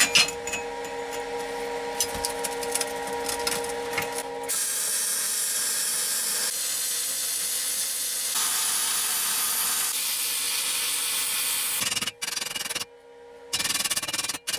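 Flux-core MIG welding on a steel frame: the arc's steady crackling hiss runs through most of the stretch, breaking off briefly twice near the end. The first few seconds hold a steady machine hum with scattered clicks.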